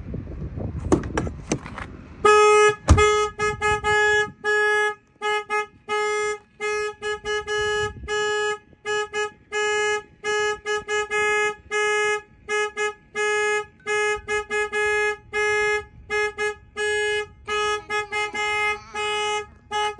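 Truck alarm sounding: a loud horn-like tone at one steady pitch, pulsing on and off about once or twice a second. It starts about two seconds in, after a few clicks and a thump.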